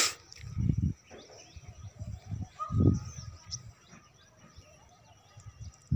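Small birds chirping in many short calls, with a few low rumbles on the microphone; the loudest rumble comes about three seconds in.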